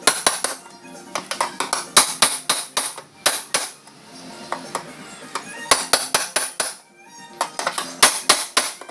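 Background music, with clusters of sharp metallic hammer taps at uneven spacing, two to four at a time: panel beating on a steel car door panel.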